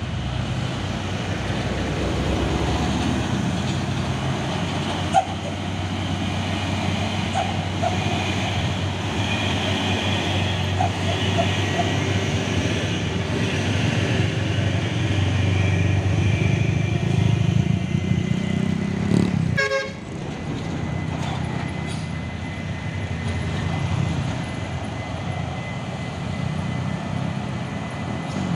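Heavy diesel trucks and cars passing on a hill road, their engines running under load in a steady low drone.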